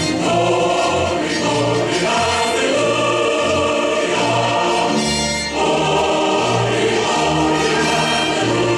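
Choir singing with musical accompaniment, steady and full.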